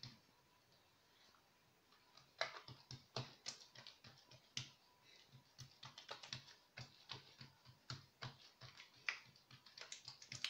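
Fingertips patting and pressing a square of oiled msemen dough flat on a granite countertop: light, irregular taps, several a second, starting about two seconds in.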